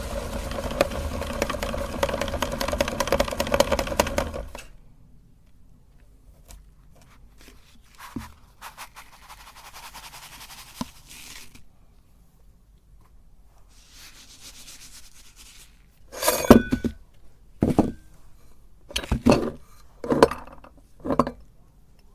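Meat grinder motor running as it grinds Oreo cookies, then stopping abruptly about four and a half seconds in. Quiet scraping and rubbing follow, then several sharp clinks and knocks of utensils or dishes over the last six seconds.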